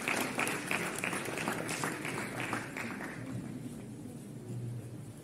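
Audience applauding, a dense patter of claps that thins out and stops about three seconds in.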